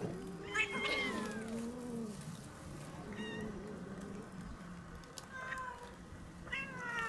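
Several stray cats meowing at feeding time, calls overlapping: a long meow falling in pitch about half a second in, shorter ones around three and five and a half seconds, and another falling meow near the end.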